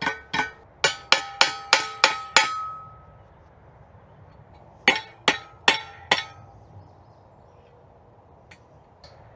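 Hand hammer striking a cold metal rod on an I-beam anvil, working it into a ring. Sharp blows that ring like struck steel come about three a second, a run of seven, then a pause of a couple of seconds and four more.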